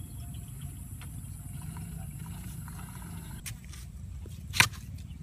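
Digging in dry earth with a wooden pole, over a steady low rumble: a few sharp knocks and scrapes from about three and a half seconds in, one much louder one near the end.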